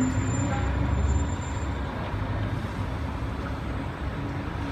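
Steady low rumble of a Sydney Trains four-car M set (Millennium train) electric train approaching along the line.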